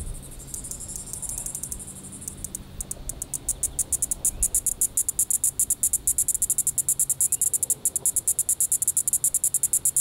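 Green-winged cicada (Diceroprocta vitripennis) answering a played-back call recording: at first a high buzz from the playback, then from about three seconds in the cicada's own sharp high clicking pulses, which speed up and grow louder into a rapid, even pulse train.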